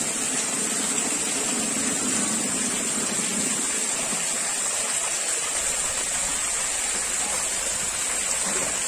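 Steady splashing rush of the pool's water jets arcing into the swimming pool and spattering on the surface.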